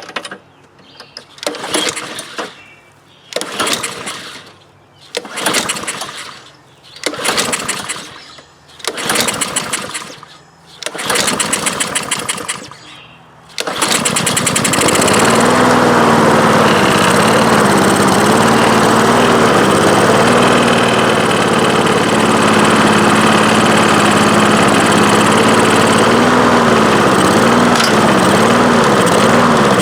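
Honda lawnmower engine being pull-started on choke: about six recoil-starter pulls, then it catches about 14 s in and keeps running, its speed wavering up and down. The owner takes this to mean the carburetor needs cleaning.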